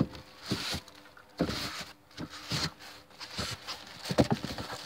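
Cardboard boxes being handled and shifted: scattered knocks and thumps with short scraping, rustling bursts, the sharpest knock near the end.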